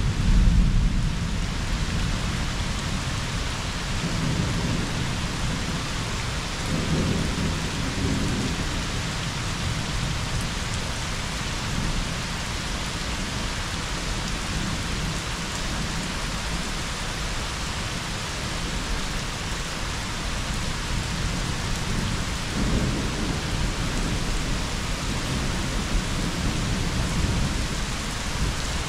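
Steady rain during a thunderstorm, with low rolling thunder underneath that is strongest at the start and swells again about seven seconds in and again past twenty seconds.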